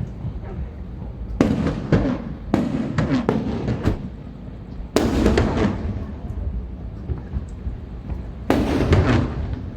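Aerial fireworks exploding: a string of sharp bangs with rumbling echoes, in clusters between about one and four seconds in, a large burst about five seconds in, and another cluster near the end.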